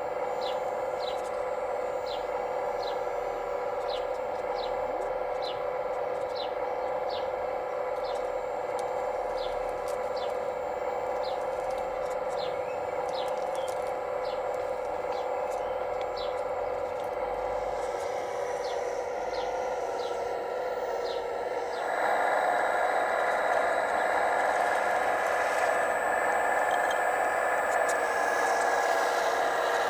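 Steady electric-hydraulic pump whine of a radio-controlled Case CX85RR excavator model working, growing louder about 22 seconds in. A bird chirps about once a second over the first two-thirds.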